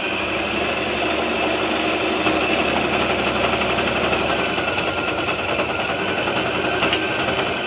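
Electric sewing machine running steadily at speed, stitching a straight seam through the fabric.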